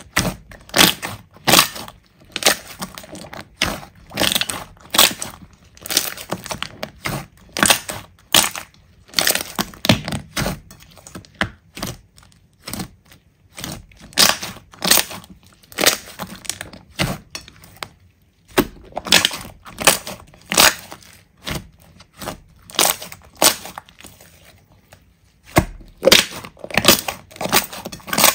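Slime being squeezed and pressed by hand, giving sharp crackling pops in quick bursts about once a second, with a few short pauses.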